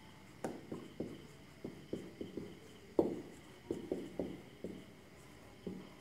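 Marker pen writing on a whiteboard: a faint string of short taps and strokes at an uneven pace, the loudest about three seconds in.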